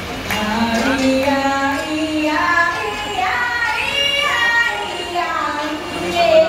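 Music with a high singing voice carrying a melody that slides up and down in pitch.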